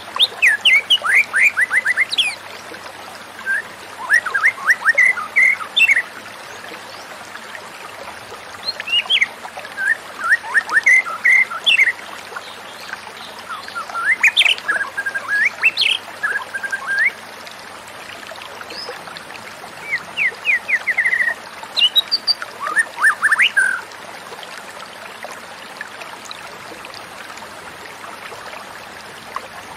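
White-rumped shama singing in short phrases of rapid chirps, trills and upswept notes, a phrase every few seconds over a steady faint hiss; the song stops for the last few seconds.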